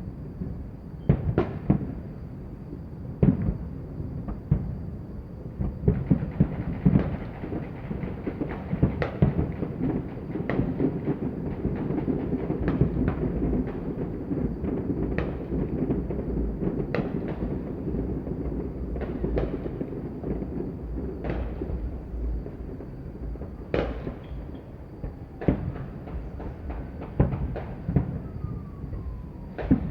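Fireworks and firecrackers going off at New Year: sharp bangs at irregular intervals over a dense continuous crackle, thickest through the middle.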